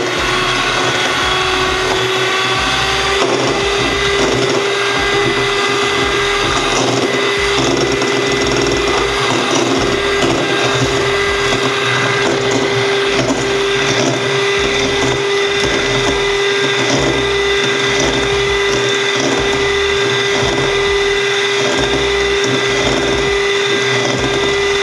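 Electric hand mixer running with a steady whine, its beaters whipping egg whites in a stainless steel bowl for meringue.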